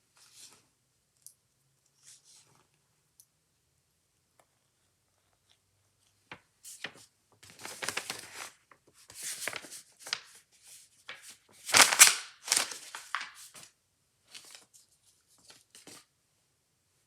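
Packaging being handled and torn open, a run of irregular crinkling and tearing rustles, sparse at first, then busier in the middle, with the loudest tear about twelve seconds in.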